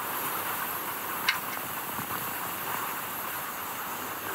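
Sony Vaio P11Z netbook being switched on: a steady hiss with a short click about a second in. The owner takes the clicking for a sign that the hard drive may be failing.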